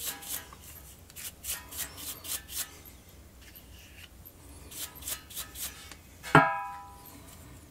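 Bicycle rear freehub, freshly greased, with its pawls clicking as it turns: loose runs of ticks, about three or four a second, pausing midway. A single ringing strike sounds about six seconds in.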